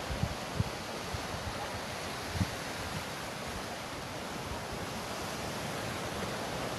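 Sea surf washing in as a steady hiss, with a few short low thumps of wind on the microphone, the strongest near the start and about two and a half seconds in.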